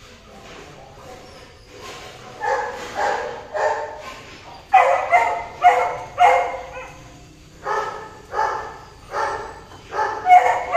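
Golden retriever giving short, yelping barks in a steady run of about two a second, faint at first and louder from about five seconds in.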